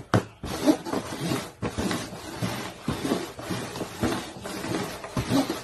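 Plastic cups knocking faintly on a tabletop as they are shuffled and set down, a soft knock about every second.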